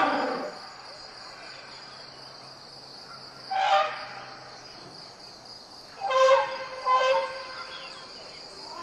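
Sound-effect calls of an American mastodon: a pitched call trailing off at the start, a short call about three and a half seconds in, and two more around six and seven seconds. A steady high insect drone runs underneath.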